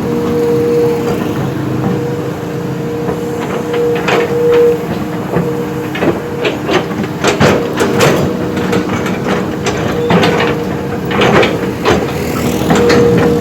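Heavy diesel earthmoving machine running steadily under work, with a string of sharp metallic clanks and knocks that come thickest in the middle and latter part.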